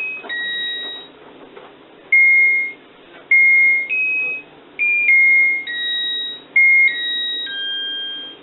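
Mr. Christmas Carolites Lights & Sounds of Christmas Model 100 playing a Christmas carol as a simple electronic beeping melody, one thin tone per note, separated by short gaps.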